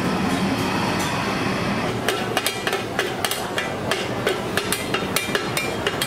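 Two metal spatulas clacking and scraping against a large flat steel frying pan as chicken pieces are stir-fried. There are rapid, irregular clacks from about two seconds in, over a steady background din.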